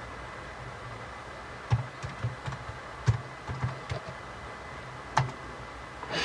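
Keystrokes on a computer keyboard: a few scattered key presses, a quick run of them in the middle, and one more key press about five seconds in. A faint low hum runs underneath.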